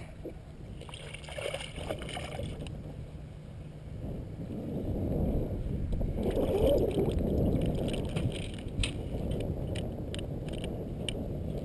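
Low rumble of wind and water outdoors on the water, swelling for a few seconds in the middle, with a few light clicks near the end.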